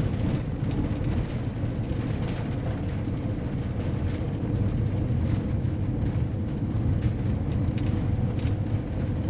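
Motorhome driving over a rough, unpaved construction detour, heard from inside the cab: a steady low road rumble with a faint steady hum and scattered light rattling clicks.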